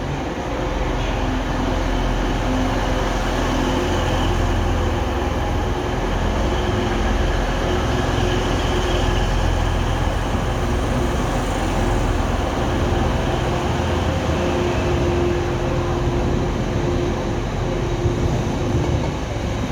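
A train running at the station: a steady low rumble with steady humming tones over it, unbroken throughout.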